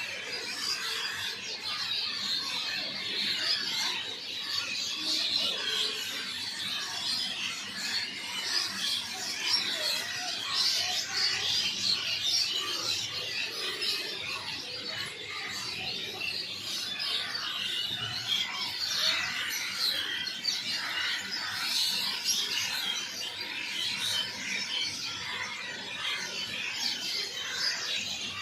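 A flock of small birds chirping continuously, many short calls overlapping with no break.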